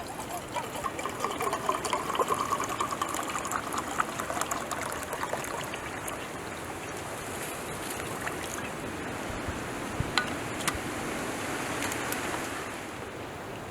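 Liquid being poured and trickling into a vessel, with a few light clicks; the flow eases off shortly before the end.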